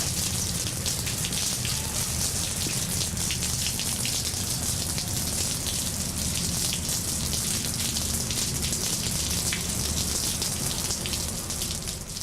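Steady rain falling: a dense patter of drops over a low, even rumble, easing slightly just before the end.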